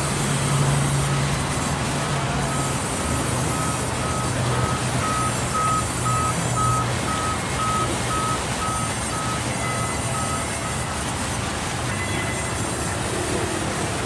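Band sawmill running: a steady machine hum and din. From about three seconds in to about ten seconds in, a high electronic beep repeats about every half-second.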